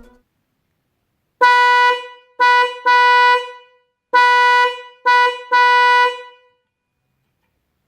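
Electric car horn sounding one steady, loud tone in six blasts, two groups of three: a long honk followed by two shorter ones, each dying away briefly after release.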